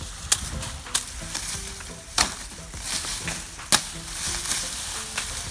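Knife chopping sugarcane stalks by hand: four sharp chops, about a second or more apart, over a steady crackling rustle of dry cane leaves.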